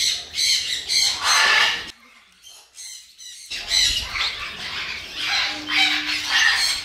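A flock of parrots, conures among them, squawking over and over in quick short calls. The calls break off for about a second and a half about two seconds in, then start again.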